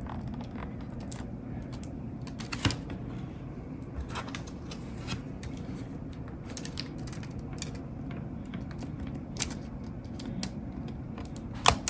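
Irregular small clicks and taps of a tool working at the battery connector inside an Alienware M17 R3 laptop as the connector is unplugged, with a few sharper clicks about three seconds in and near the end.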